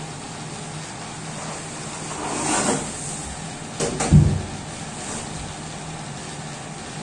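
Large cut aluminium composite (ACP) sign panel being handled and lifted off a CNC router bed: a scraping swell about two seconds in, then two sharp clicks and a low thump as the panel is raised, over a steady low hum.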